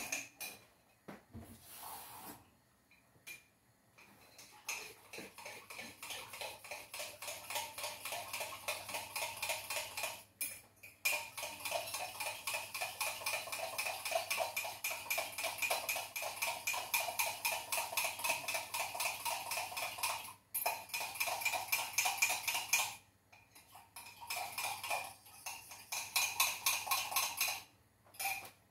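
A spoon stirring flour and water in a mug with quick, even strokes that clink against the sides, mixing a flour paste to thicken porridge. The stirring stops briefly a few times.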